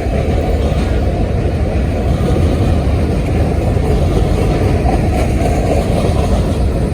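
Freight train cars rolling past, a steady, loud, low rumble with no horn.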